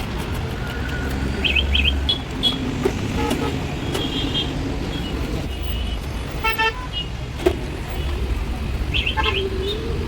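Road traffic: a steady engine rumble with several short horn toots, the clearest about halfway through and another near the end.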